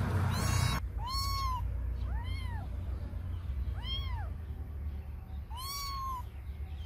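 Tabby kitten meowing five times: short, high cries that each rise and fall in pitch, a second or two apart. A rustling noise at the start cuts off just under a second in.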